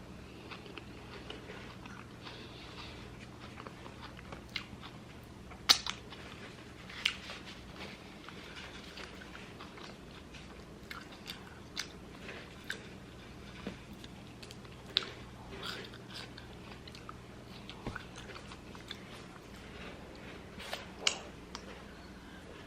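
Close-miked eating sounds: a person biting and chewing a loaded cheeseburger and curly fries, with scattered wet smacks and crunches. The loudest bites come about six seconds in and again near the end.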